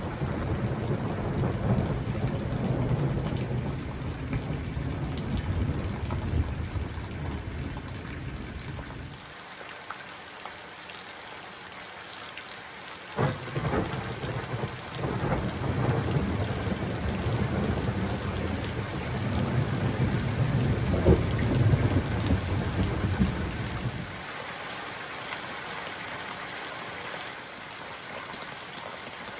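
Thunderstorm: rain falling steadily with thunder rumbling. A long low rumble runs through the first nine seconds and dies away. A sharp crack about thirteen seconds in opens a second long rumble that swells to its loudest around twenty-one seconds and fades by about twenty-four seconds.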